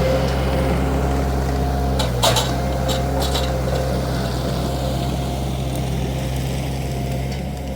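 Wacker SM120 mini skid steer's engine running steadily at a constant pitch, with a few sharp clanks about two to three and a half seconds in.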